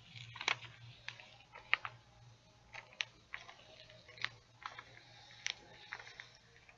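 Heat-transfer paper crackling and clicking under the hands as it is unrolled and smoothed onto a T-shirt: irregular small sharp ticks over a low steady hum.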